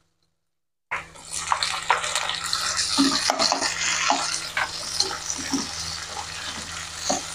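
Chopped tomatoes sizzling hard in hot oil in a wok, starting abruptly about a second in, with the spatula scraping and knocking as they are stirred.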